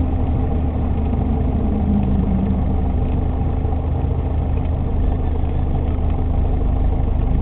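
Piper Archer II's four-cylinder Lycoming O-360 engine and propeller running steadily at low idle during the rollout and taxi after touchdown, heard from inside the cockpit.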